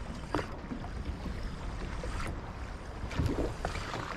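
Wind buffeting the microphone with a steady low rumble, and water slapping against a boat's hull on choppy open sea, with a few short splashes.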